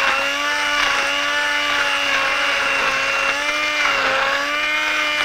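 Hand-held stick blender motor running steadily with a whine, puréeing peas with stock and butter into a pea sauce. It spins up at the start and its pitch sags briefly about three and a half seconds in.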